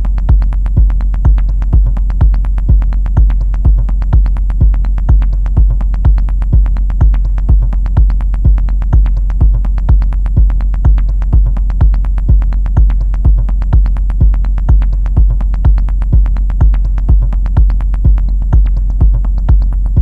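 Techno beat from a Korg Volca Sample drum machine: a heavy kick drum that drops in right at the start and then hits about twice a second, with fast, even ticking hits over it.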